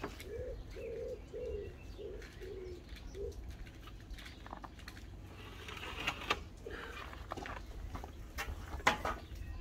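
A pigeon cooing, a run of short low notes about two a second through the first few seconds and once more later. A few sharp knocks and clicks come in between, the loudest near the end.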